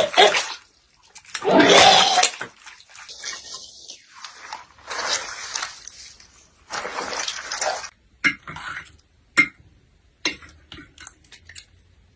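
Foley sound effects being made: several bursts of rushing, splashy noise, each about a second long, then a run of short sharp taps and clicks in the last few seconds.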